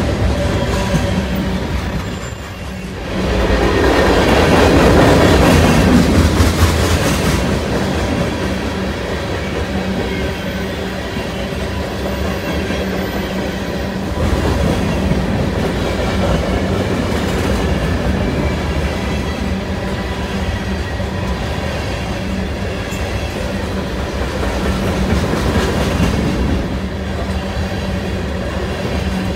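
BNSF freight train of covered hopper and tank cars rolling past at speed, a continuous rumble and rattle of wheels on rail, louder for a few seconds from about three seconds in.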